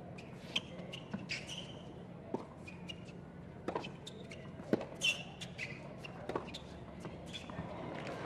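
Tennis rally on a hard court: a ball struck back and forth by racket strings, a sharp pop about every second to second and a half, with short squeaks of sneakers on the court surface over a low crowd hush.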